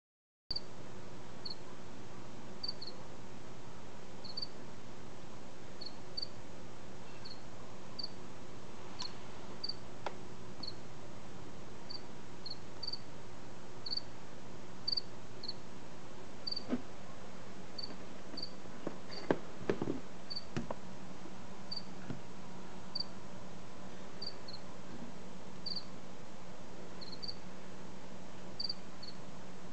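A cricket chirping on and on: short, high chirps about one and a half a second, some in quick pairs, over a steady low hum. A few brief knocks and clicks come about two-thirds of the way through.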